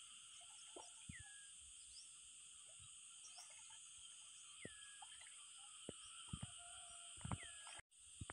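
Steady insect drone with a bird giving a short falling call three times, and a few soft splashes and knocks of hands working in shallow pond water. The sound cuts out briefly near the end.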